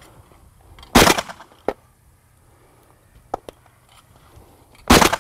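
Two shotgun shots fired at thrown clay targets, one about a second in and one near the end.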